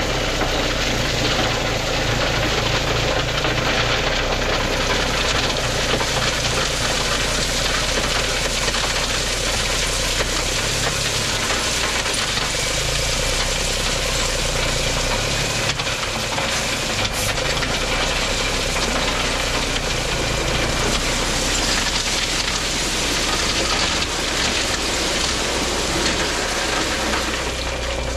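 Heavy diesel engine of earthmoving equipment running continuously, with a low drone that strengthens and fades every few seconds.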